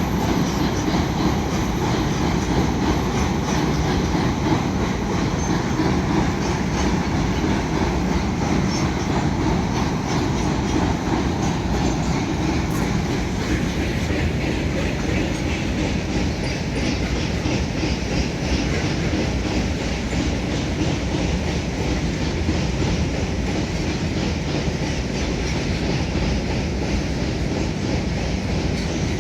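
Goods train wagons rolling past steadily, the wheels clattering and rumbling on the rails without a break.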